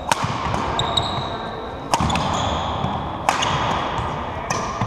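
Badminton rally: rackets hitting the shuttlecock with sharp clicks about every one and a half seconds, four times, while shoes squeak on the wooden court floor between hits.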